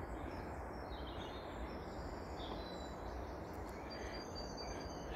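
Steady low background noise, with a few faint, brief bird chirps now and then.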